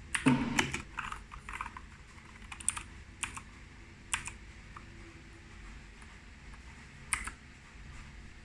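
Keys of a Keychron K4 mechanical keyboard being pressed: a quick run of clacks in the first second and a half, then single keystrokes every second or few.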